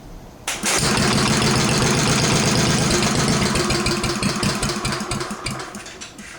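Vintage cast-iron Briggs and Stratton 9 hp single-cylinder engine with a rebuilt Flo-Jet carburetor firing about half a second in and running for a few seconds, then fading and dying near the end. The owner takes it to be running lean and suspects poor fuel flow to the carburetor.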